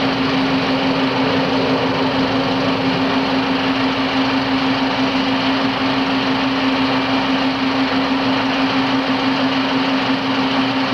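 Powered conveyor belt running with a steady mechanical hum: one strong low drone over an even rushing noise.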